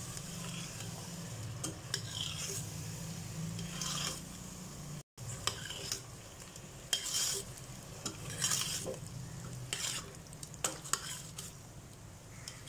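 A metal spoon stirring a thick curry of potatoes, chicken and curd in a steel pressure cooker, scraping against the pot every second or two as the masala sizzles on the heat, over a steady low hum. A brief break about five seconds in.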